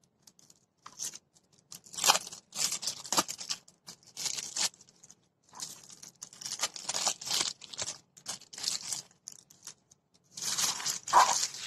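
Clear plastic film rustling and crinkling in irregular bursts as it is handled, pulled and smoothed.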